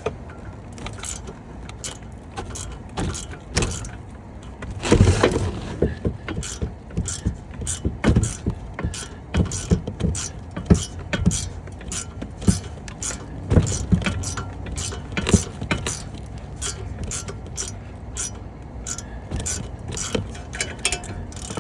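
Socket ratchet clicking in runs as a hub assembly mounting bolt is worked loose, mixed with knocks and clanks of metal tools, and a longer rattling clatter about five seconds in.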